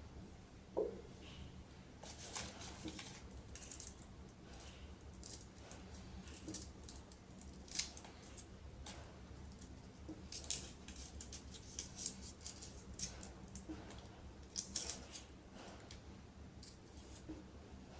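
A run of quick, crisp clicks and crackles from hands-on kitchen prep work, irregular and close-up, with a single soft knock about a second in.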